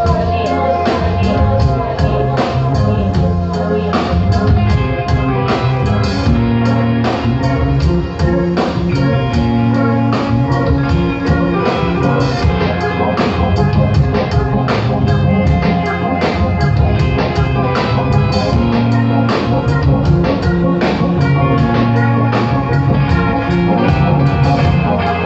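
A live rock band playing, with drum kit, guitar and bass in a steady beat.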